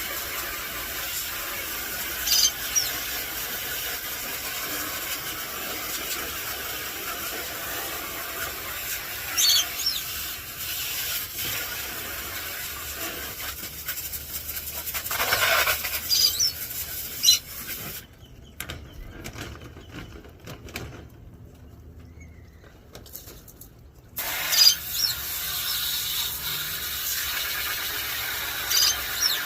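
Garden hose spraying steadily, washing out an aviary and nest box, cutting out for about six seconds past the middle before starting again. Short, sharp high squeals come every several seconds, five in all.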